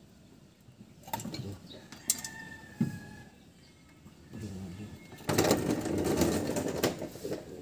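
A few sharp metallic clicks of hand tools on the car's suspension parts, then about two seconds of rapid mechanical rattling from tool work at the front wheel hub.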